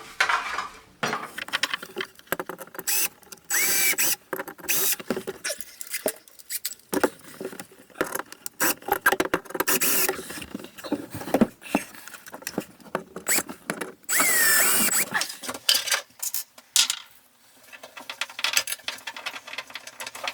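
Clicks, knocks and scraping of hands fitting a tip-out tray and its hinges into the front panel of a bathroom vanity. There are two brief steady runs, about four seconds in and again near fourteen seconds.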